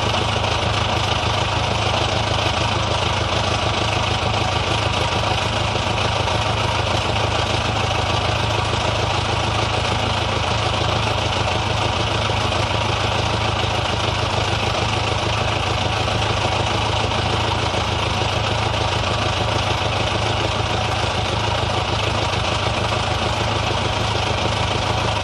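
Old car's engine idling steadily at an even, unchanging speed.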